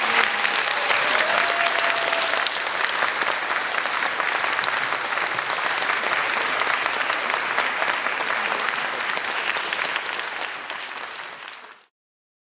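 Audience applauding, a dense steady clapping that fades over the last couple of seconds and then cuts off.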